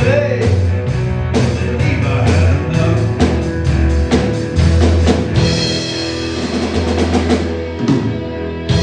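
Live rock band playing: drum kit with a prominent bass drum, electric guitar and acoustic guitar. About halfway through the drum beat thins out and the guitars and cymbals ring on sustained chords.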